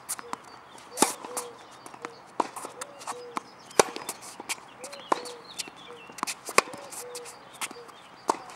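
Tennis rally on a hard court: sharp pops of racket strings striking the ball, the loudest every two to three seconds, with quieter knocks of ball bounces and the far player's shots between them.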